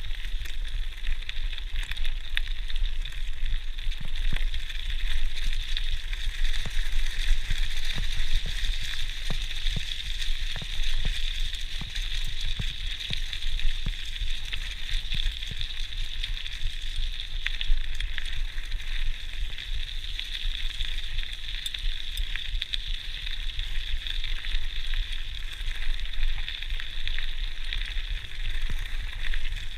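GT Outpost Trail mountain bike rolling fast over a gravel track: a steady crackling hiss from the tyres on the stones, with many small clicks and rattles, and a low rumble of wind on the chest-mounted GoPro's microphone.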